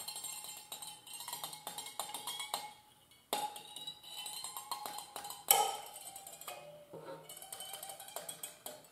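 Rasp drawn back and forth across a taut monofilament fishing line held at about 2 pounds of tension: a quick run of scrapes and clicks, with the line ringing in pitched tones like a plucked string. There is a short pause about a third of the way in, and the loudest strike comes a little past halfway. The sound is weird.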